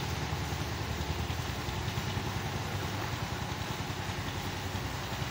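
A motor vehicle's engine running steadily, a low even hum with road or wind noise over it.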